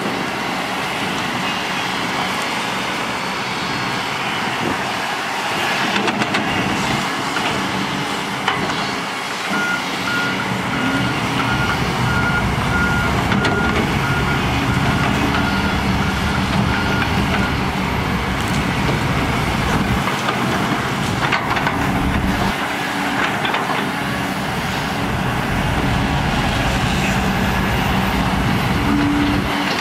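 Diesel engines of Kobelco hydraulic excavators running steadily as they dig wet mud. About ten seconds in, a reversing alarm on one of the machines beeps in an even series for about eight seconds.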